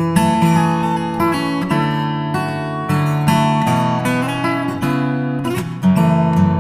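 Background music: acoustic guitar playing a plucked melody over chords.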